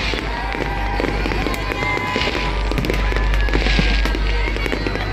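Fireworks display: aerial shells bursting in quick succession, a dense run of bangs and crackles over a continuous low booming.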